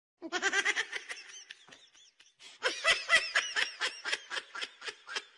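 High-pitched human laughter: two fits of rapid giggling pulses, the second starting about two and a half seconds in after a brief lull.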